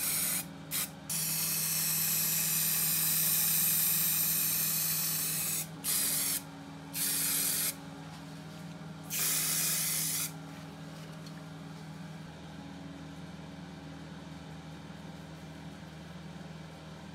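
Red spray paint hissing out in several long bursts with short breaks, stopping about ten seconds in, as the saw's frame parts are painted. A steady low hum runs underneath throughout.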